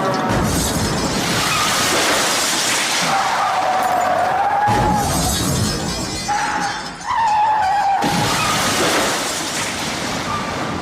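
Car crash sound effect: tyres screeching in two long wavering squeals, over a continuous din of crashing and shattering glass, with a fresh crash about seven seconds in.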